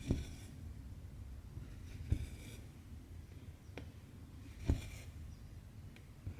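Hand cross-stitching on stretched 18-count Aida cloth. The needle goes through the fabric with a soft tap and the cotton thread is drawn through with a brief rasp, about three times at a slow, even pace.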